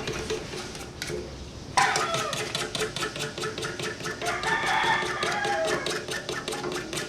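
Fast, rhythmic scraping as carbon is cleaned off an engine valve. A rooster crows over it, once starting sharply about two seconds in and again a little past the middle.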